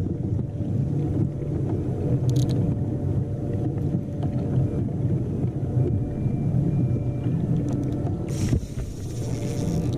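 Wind buffeting the microphone: a steady low rumble, with a brief click about two seconds in and a short hiss near the end.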